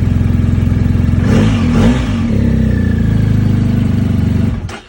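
BMW R1250GS Adventure's boxer-twin engine running with a steady pulse and revving up briefly about a second in. It cuts out suddenly near the end.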